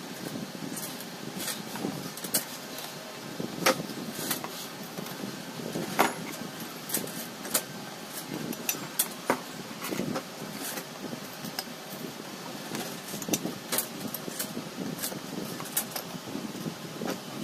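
Irregular light clicks and metallic clinks of small tools and parts being handled, over a steady low background rumble.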